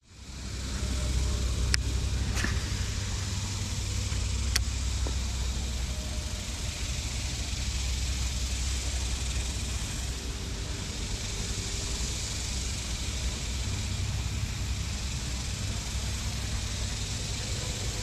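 Steady low hum under a constant hiss, with a few sharp clicks in the first five seconds, heard aboard a bass boat on a creek.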